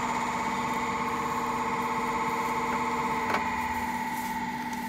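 Beacon BCS815S common rail injector test bench running: a steady mechanical whine made of several pitched tones. A single click comes about three seconds in, and one of the lower tones drops out with it.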